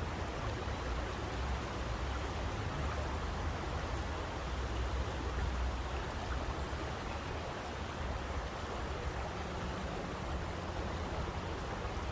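Steady rushing of running water, an even hiss over an uneven deep rumble, with no pauses or single events.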